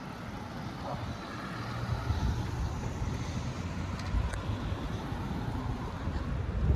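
Road traffic: cars passing close by, a steady low rumble of engines and tyres that swells through the middle. There is a brief low thump near the end.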